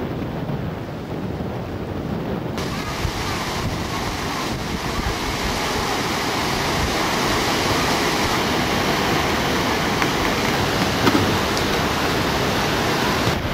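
River water rushing through the sluice gaps and over the stone steps of the Khaju Bridge weir: a steady roar of white water. A couple of seconds in, the sound turns brighter and hissier.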